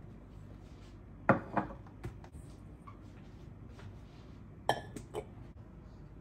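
Kitchen clatter of containers being set down on a stone counter: a few hard knocks, then a stainless steel mixing bowl clanks down about two-thirds of the way in with a short metallic ring.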